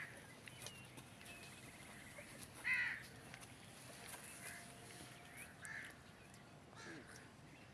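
A few short, harsh animal calls at irregular intervals, the loudest a little under three seconds in, over faint background noise.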